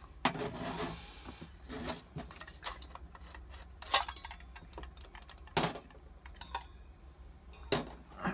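Clinks and knocks of a gasoline camping stove's steel case and plastic lid being handled and lifted off, about five separate knocks with the sharpest about four seconds in.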